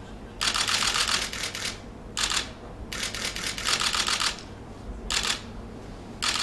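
Rapid mechanical clicking in about five bursts, the longest lasting over a second, separated by short pauses.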